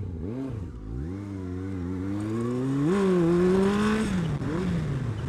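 Motorcycle engine pulling under throttle, its pitch rising steadily for about three seconds and then falling away near the end as the revs drop.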